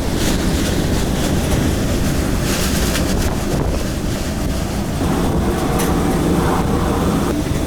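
Strong gusty wind buffeting the microphone in a loud, steady roar, with a faint steady whine joining about five seconds in.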